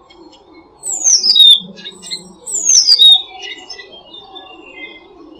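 Wild songbirds singing. Two loud, quick phrases sweep down in pitch, one about a second in and another near the middle, among softer chirps. A low, pulsing coo runs underneath.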